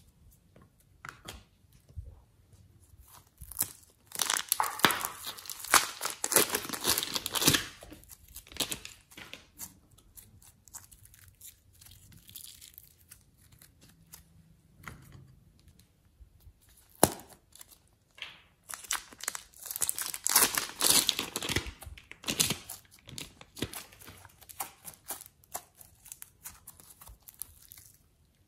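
Hands squeezing and kneading sticky slime, giving crackling and popping clicks. There are two long spells of dense crackling, one a few seconds in and one about two-thirds of the way through, with sparser clicks between.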